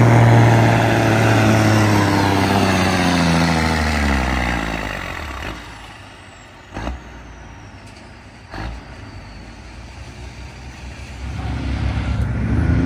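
Semi-truck diesel engine on the pulling track, loud at first with its pitch falling as it winds down over the first four seconds or so. Then a quieter engine with two sharp knocks about two seconds apart, and an engine growing louder again near the end.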